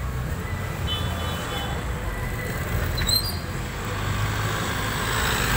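City road traffic: vehicle engines running, with a white light truck driving past and the low rumble growing louder from about four seconds in. A few brief high squeaks come about three seconds in.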